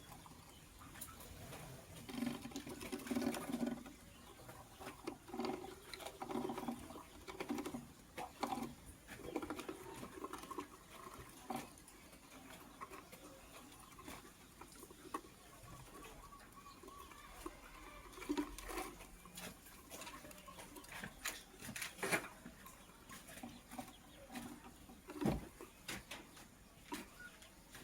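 A gray lovebird pecking, scratching and rustling in its cage: irregular small taps and scrapes, with a few sharper clicks, typical of a lovebird working nest material.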